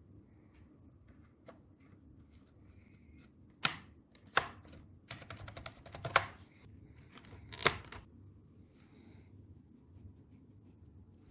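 Plastic clicks and taps from a computer keyboard being handled: four sharp knocks spread through the middle, with a quick run of small clicks between them.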